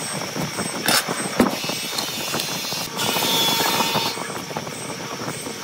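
Hand work on a wooden block over steady background noise: two sharp knocks about a second in as tools are set on the wood, then a felt-tip marker scratching along the wood for about a second as it traces a template.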